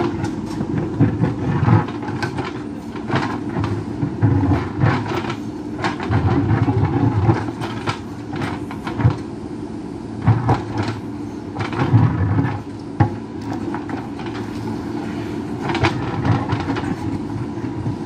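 JCB backhoe loader's diesel engine running steadily under hydraulic load as its backhoe bucket digs into rock, with irregular clattering, knocking and scraping of stones against the steel bucket, the sharpest knocks about two seconds in and near the twelve-second mark.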